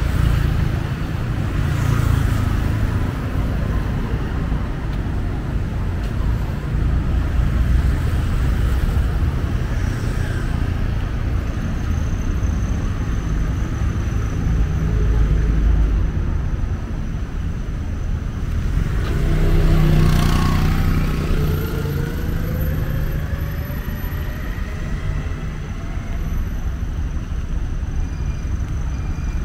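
Street traffic: a steady rumble of passing motor vehicles. About twenty seconds in, one vehicle passes close and speeds up, its engine pitch rising for several seconds.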